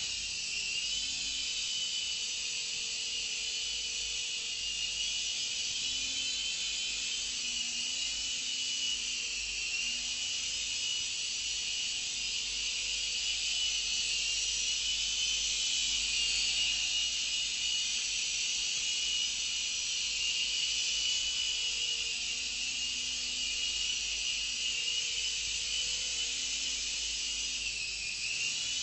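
Syma S110G micro RC helicopter in flight, its small electric rotor motors giving a steady high-pitched whine that rises and dips slightly in pitch as the throttle changes.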